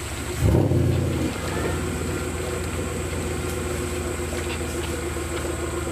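Off-road 4x4's engine running steadily, with a brief rev about half a second in that is the loudest part.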